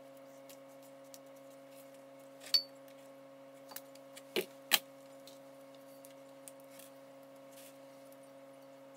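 Scissors snipping through thick PVC tape, a sharp click about two and a half seconds in, then a few small clicks and two quick knocks as tools and tape are handled on the wooden bench, over a steady low hum.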